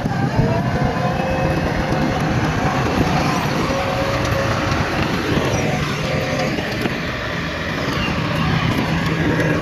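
Heavy diesel construction machinery running steadily: the engines of a bulldozer and dump trucks working.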